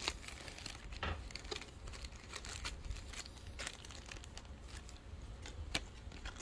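Thin clear plastic packaging bag crinkling in the hands as it is opened, with scattered sharp crackles.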